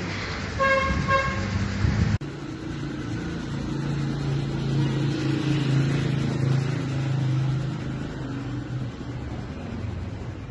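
A car horn gives two short toots about half a second in, over steady traffic noise. An abrupt cut about two seconds in leaves a steady low rumble of street noise.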